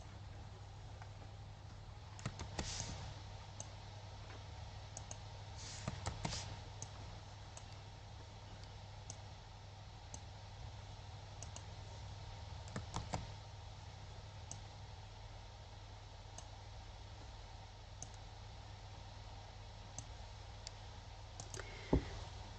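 Computer mouse clicking: scattered single clicks with short bunches of several clicks about 3, 6 and 13 seconds in, over a faint steady low hum.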